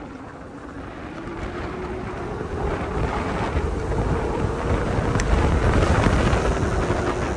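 A 12 kW, 72 V electric bike running along a dirt road: wind rushing over the microphone and tyre noise, growing louder as it speeds up. A thin whine from its QS273 rear hub motor rises in pitch over the first couple of seconds, then holds steady.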